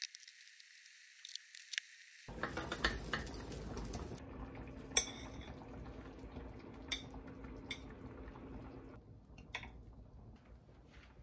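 Kitchen utensils clicking and tapping on a ceramic plate: a handful of sharp knocks from a knife and chopsticks, the loudest about five seconds in.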